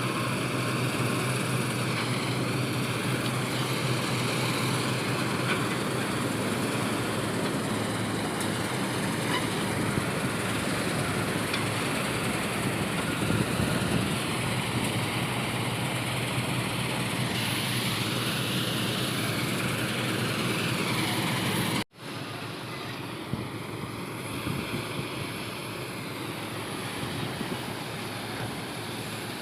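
Diesel farm machinery running steadily, a loud continuous engine drone with a low hum. About two-thirds of the way through it cuts out for an instant, then carries on a little quieter.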